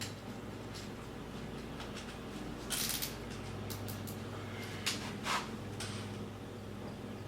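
A few short clicks and scrapes of tools being handled, about three seconds in and twice more around five seconds, over a steady low hum.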